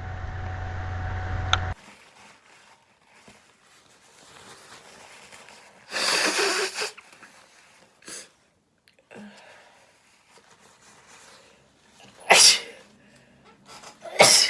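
Person sneezing: a long, forceful burst through the nose about six seconds in, then two sharp sneezes near the end, the last trailing off with a falling voice. A steady hum cuts off suddenly in the first two seconds.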